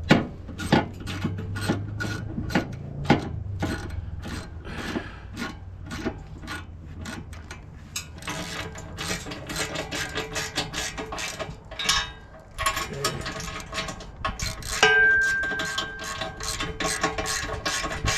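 Metal clicks and clanks as fifth wheel hitch parts are worked into the truck bed's rail mounts to lock them in, coming thicker in the second half. A short ringing metal note sounds about fifteen seconds in.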